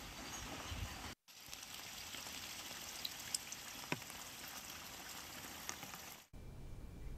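Rush of fast-flowing floodwater, an even watery hiss with scattered small splashes and ticks. It drops out briefly about a second in, and near the end gives way to a quieter low rumble.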